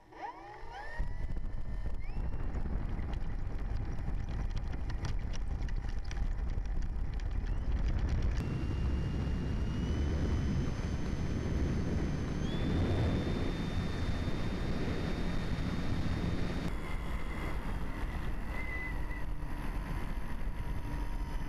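Multiplex FunCub RC plane's brushless electric motor and propeller spinning up with a rising whine about a second in, then running with a steady whine that shifts pitch several times as the throttle changes. Heavy wind rush and low rumble on the onboard camera's microphone run underneath.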